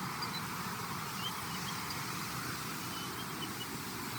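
Steady rush of water, with a few faint, short, high bird chirps scattered through it.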